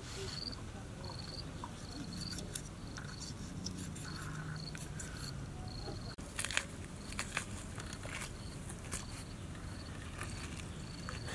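An insect chirping steadily in short high pulses, about two a second, with a few sharp clicks and scrapes from a knife cutting through the raw fish's scaled skin and flesh partway through.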